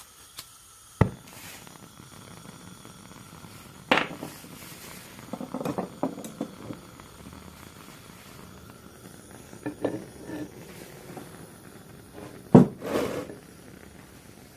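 Propane torch modified to burn MagneGas 2, hissing steadily, while metal clanks and taps of tools and copper fittings come several times; the loudest clank is near the end.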